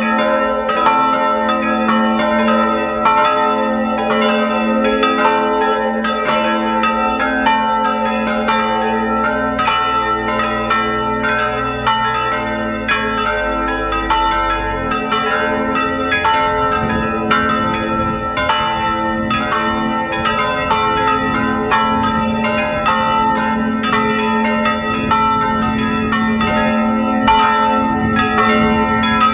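Peal of four swinging bronze church bells cast by the Felczyński foundry, tuned A¹, C², E² and G-sharp², ringing together in an open steel bell frame. Their strikes overlap in a steady, continuous clangour with long ringing tones.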